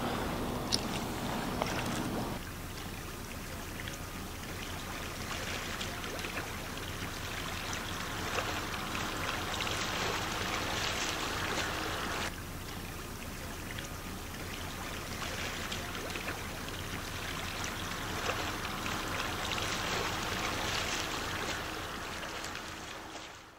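Sea water splashing and sloshing around people swimming and wading through the shallows with heavy rucksacks; the sound shifts abruptly twice and fades out near the end.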